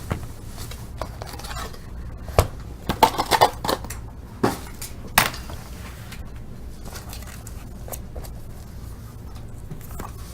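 Hands handling trading-card packs and their box on a table: a scatter of light clicks and knocks, with a quick cluster a few seconds in and single knocks after it, over a low steady hum.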